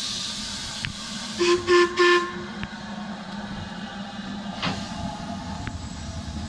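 Three short blasts on the whistle of LMS Black 5 steam locomotive 45305, about a second and a half in, over a steady hiss of steam from the slowly moving engine.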